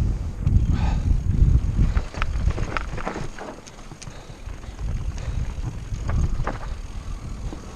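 Mountain bike riding over rough ground, with wind buffeting the microphone and scattered clicks and rattles from the bike, thickest about two to three seconds in and again near the end.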